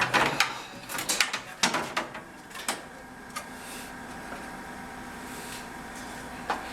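Short clicks, knocks and scrapes of a ground wire being handled and fed up into an electric meter base, several in the first three seconds, then quieter.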